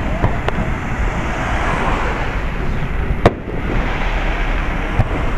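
Fireworks display: a steady rumble and crackle of shells bursting, with a sharp bang about three seconds in and a smaller one near the end.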